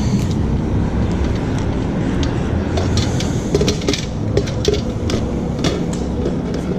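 A steady low rumble throughout, with a flurry of light clicks and knocks from fishing rods and reels being handled and set down in a kayak a few seconds in.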